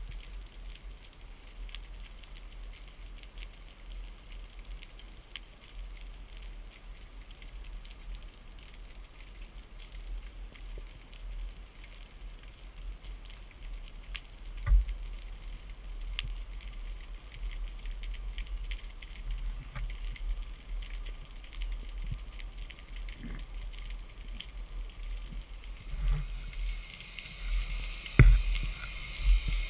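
Underwater sea ambience picked up through a camera's waterproof housing: a steady fine crackling over a low rumble. A few dull knocks come through, one about halfway and several near the end, where the hiss also grows brighter.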